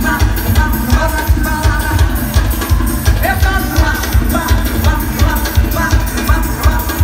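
Live carnival band music played loud through a trio elétrico sound truck's speaker stacks: a steady, heavy drum beat with singing over it.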